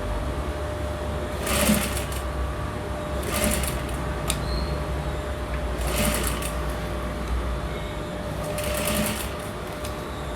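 Electric sewing machine running steadily as it stitches a blouse neckline close along the edge. Four brief louder bursts are spread through the run.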